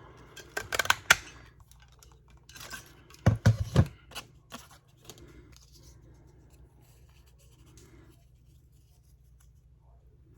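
Paper-crafting handling on a work table: a few sharp clicks about a second in, a louder cluster of knocks with dull thuds around three and a half seconds in, then faint rustling and scraping of paper.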